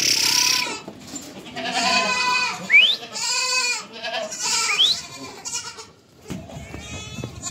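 Mother goats and their kids bleating, several overlapping pitched calls one after another as the does and kids call for each other at a reunion. Two short, high, rising squeaks come in between the calls.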